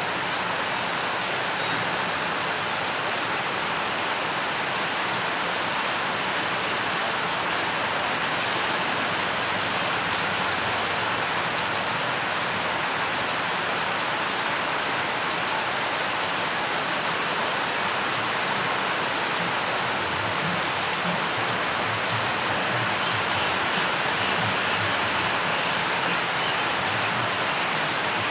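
Heavy rain pouring onto a road already covered in water, a steady, even hiss of countless drops splashing into the flooding surface.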